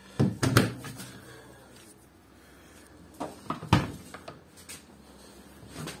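Front-loading washing machine porthole doors being handled: two sharp knocks with a latch click about half a second in, then another cluster of clicks and a heavier thump in the middle.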